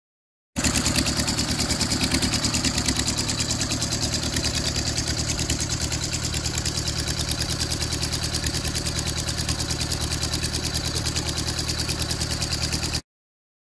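The small four-cylinder engine of a Taylor J-2 Cub light plane idling with its propeller turning, in a steady, even pulse. The sound starts and cuts off abruptly.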